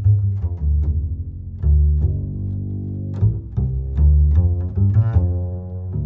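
Background music with a deep bass line, its notes starting sharply one after another.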